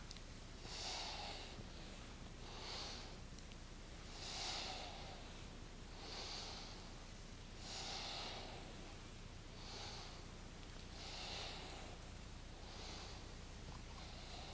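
A woman's faint, rhythmic breathing, an inhale and an exhale alternating with a full breath about every three and a half seconds, paced to slow seated spinal circles.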